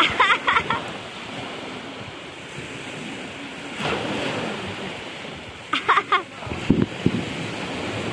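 Small waves breaking and washing up on a sandy beach, with a wave surging about four seconds in. A child's high voice cries out briefly near the start and again about six seconds in, and a few low thumps follow.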